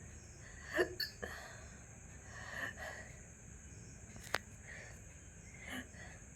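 A person hiccuping: several short, sudden hiccups from the throat, the loudest about a second in.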